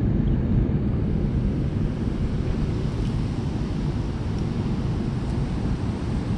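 Steady low rush of water pouring over a concrete spillway and churning below it, mixed with wind buffeting the microphone.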